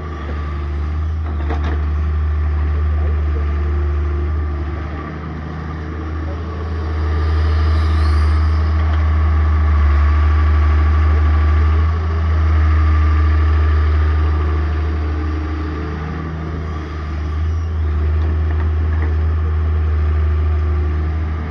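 Excavator's diesel engine running under working load, its low rumble swelling and easing every few seconds as the machine works.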